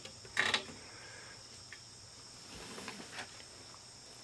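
Clicks and light knocks of hands handling the plastic case of a Panasonic RQ-V51 portable cassette player, a loud cluster about half a second in and softer rustling and a click around three seconds. A steady high-pitched whine runs underneath.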